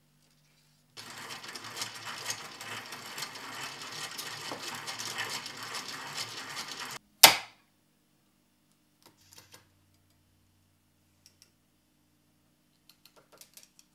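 Hand-cranked film rewind arm spun fast: a rapid, even rattling whir of its gears and the turning reel for about six seconds, then one sharp loud knock. After that come a few faint clicks and taps of film-handling gear.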